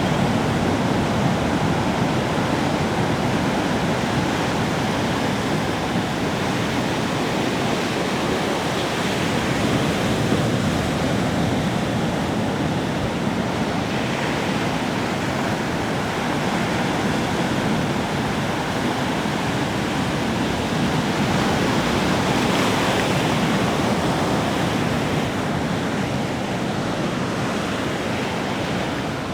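Sea waves breaking on a shore: a steady rushing surf, swelling slightly as a wave washes in about 14 seconds in and again around 23 seconds in.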